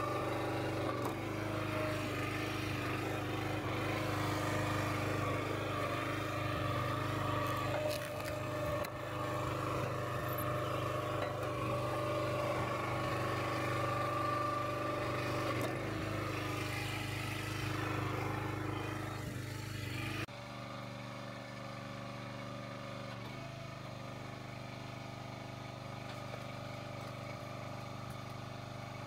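Kohler Command Pro 9.5 hp single-cylinder engine on a log splitter running steadily after a carburetor cleaning. About two-thirds of the way through, the sound changes abruptly to a slightly quieter, steady note.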